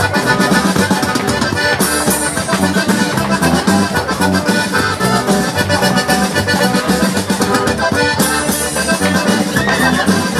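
Accordion-led Mexican dance music with a steady beat.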